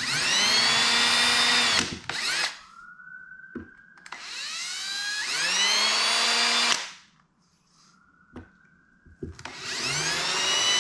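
Ridgid cordless drill boring pilot holes into a wooden subwoofer enclosure: three runs of motor whine, each rising in pitch as the drill spins up, with short pauses between them.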